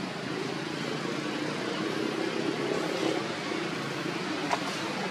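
Steady low rumble of background noise that swells a little through the middle, with a few faint clicks near the end.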